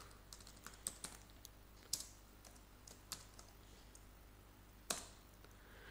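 Faint typing on a computer keyboard: a handful of separate, irregular key clicks with pauses between them.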